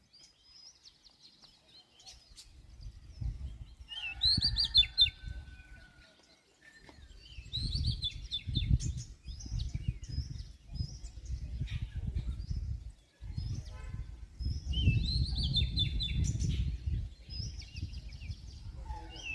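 Birds chirping and singing, with a bright song phrase that comes back every few seconds, over a low rumble that comes and goes.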